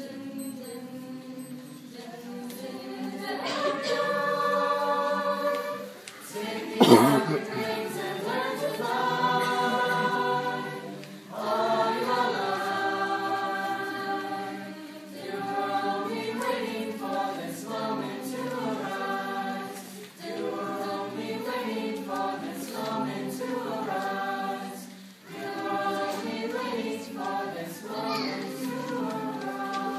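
High school choir singing held chords in long phrases, with brief breaks between them. A single sharp knock sounds about seven seconds in.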